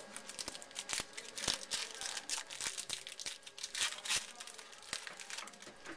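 A trading-card pack wrapper crinkling and tearing as a pack of 2011 Panini Playoff Contenders baseball cards is opened by hand: a fast run of sharp crackles and snaps that thins out near the end.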